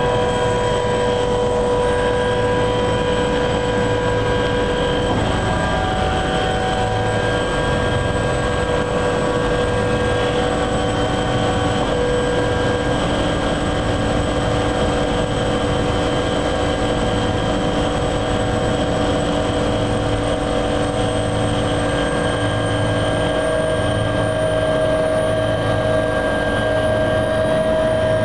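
Helicopter running on the ground, heard from inside the cabin: a steady engine and rotor din with a low throb and a high whine that rises slightly in pitch near the end.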